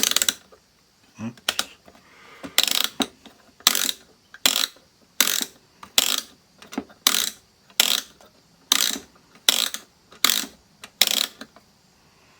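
Rotary range-selector switch of a Micronta analog multimeter being turned through its detents: a steady run of about a dozen sharp clicks, roughly one every 0.7 seconds, stopping near the end.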